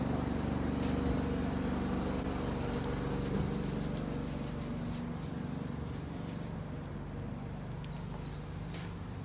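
City street noise with a vehicle engine's steady low hum that slowly fades, and a run of light taps in the second half.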